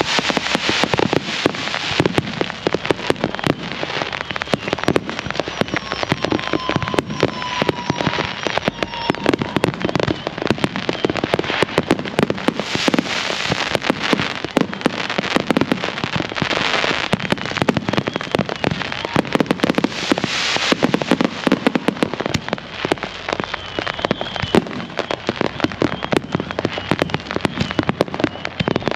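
Fireworks going off non-stop in dense, rapid crackling and popping, with heavier bursts about 13, 17 and 20 seconds in. A faint whistle runs for a couple of seconds about six seconds in.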